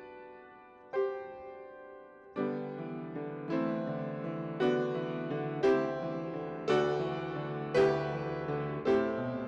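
Piano playing slowly: struck chords that ring and fade, with deeper bass notes joining about two and a half seconds in and an accented chord about once a second after that.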